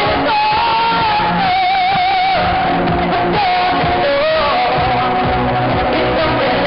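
Live pop song played loud through stage PA speakers, with a held melody line that wavers in pitch over a full band. It is recorded close to the speakers, so the sound is harsh and crowded.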